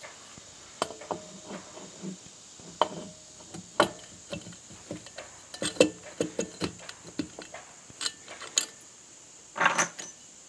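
Briggs & Stratton 18.5 HP Intek OHV cylinder head being set by hand onto the engine block and head gasket: scattered metal clinks and knocks of parts being handled, with a louder clatter near the end.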